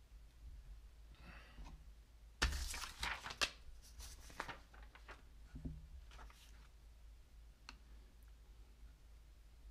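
Close handling noise: a burst of knocks, clicks and rustling starting about two and a half seconds in and lasting about two seconds, the sharpest knocks at its start and about a second later, then a few scattered faint clicks.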